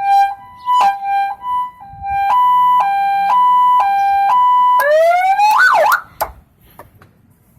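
Aftermarket electronic car siren played through speakers mounted on a pickup truck. It sounds a two-tone hi-lo pattern, switching between two pitches about three times a second. About five seconds in it changes to a rising wail and a quick up-and-down yelp, then cuts off.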